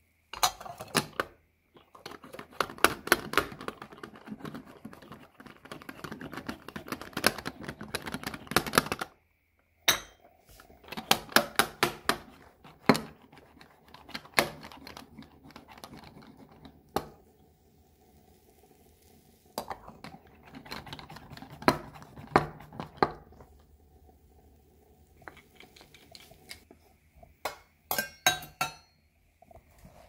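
Stainless-steel manual milk frother being pumped: the plunger is worked up and down in the milk, giving rapid metallic clinks in several runs with pauses between.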